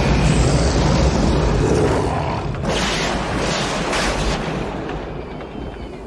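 Storm-force wind, tornado-type, blowing hard with a deep low rumble. Hissing gusts surge through the middle, and the wind eases off toward the end.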